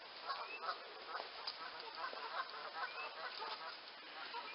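Faint bird calls: a quick series of short, repeated calls, a few a second, with now and then a brief rising chirp.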